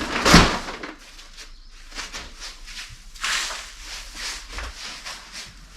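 Dry wood shavings being scattered and spread, a loud rustling swish near the start and then a run of softer rustles, two or three a second.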